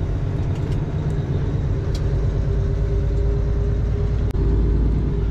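Semi truck driving, heard from inside the cab: a steady low rumble of diesel engine and road noise, with a steady whine through the middle that cuts out briefly about four seconds in.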